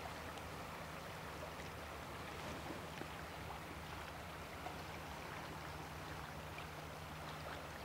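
River water rushing steadily past the bank, an even constant noise, over a faint low hum.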